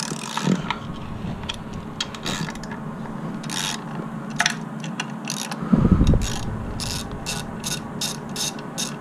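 A 1/4-inch drive ratchet with a 10 mm socket loosening bolts, its pawl clicking on the back-strokes, with a faster regular run of about three clicks a second in the last three seconds. A dull knock about six seconds in.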